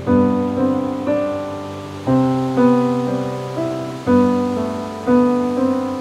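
Slow, gentle solo piano music, notes and chords struck every half second or so and left to ring and fade, over a faint wash of ocean waves.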